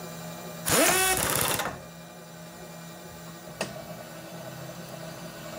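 A mechanism on a milling machine gives a short rattling whir, about a second long, rising quickly in pitch as it starts. A single sharp click follows a couple of seconds later.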